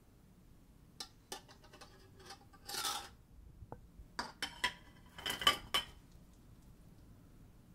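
Strawberries tipped from a ceramic dish into warm water in a perforated stainless-steel colander: the dish clinks and knocks against the metal several times, with a short splashy rush about three seconds in.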